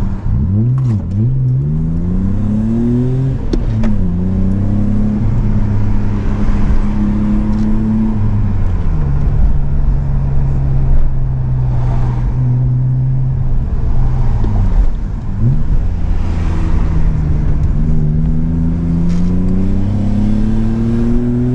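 BMW E34's straight-six engine pulling through the gears of its manual gearbox: the revs climb, drop back at upshifts about four and nine seconds in, hold steady at cruise, dip again about fifteen seconds in, then climb once more.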